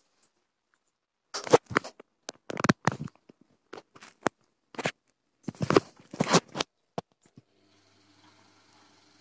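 Gorenje WA 50050 front-loading washing machine's drum tumbling wet laundry: starting about a second in, clusters of swishing and clattering come every second or so as the load is lifted and falls. A faint steady hum sets in near the end.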